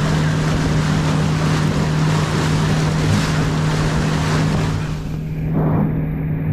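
Boat engine running with a steady drone while wind and water rush past the hull. About five seconds in the hiss thins out, leaving mostly the engine drone.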